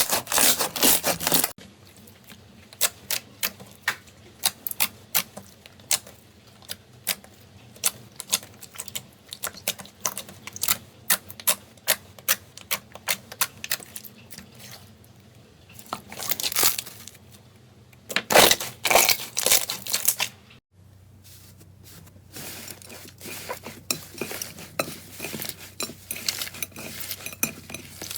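Slime being pressed, poked and stretched by hand, making many quick clicking, crackling pops with squishy crunches. The sound is louder and denser at the start and again about two-thirds of the way through.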